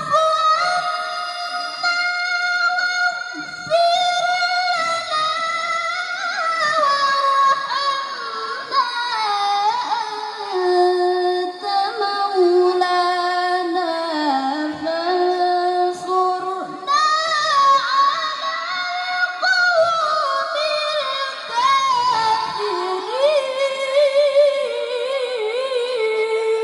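A single high voice chanting or singing long, drawn-out melodic notes with ornamented turns. The pitch sinks gradually over the first half, then jumps back up after a brief break and sinks again.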